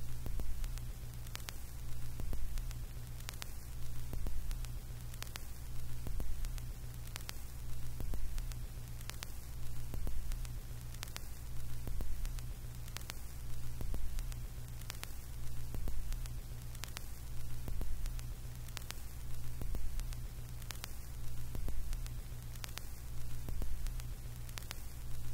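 Steady low electrical hum with hiss and faint clicks about once or twice a second.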